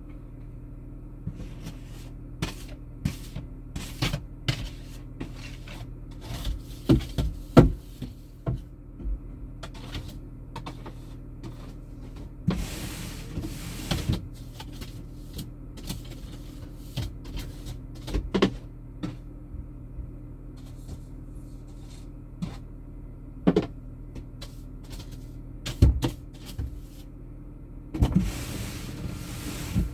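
Car driving, heard from inside the cabin: a steady low engine and road drone with irregular clicks, knocks and rattles throughout, and a brief rushing swell twice.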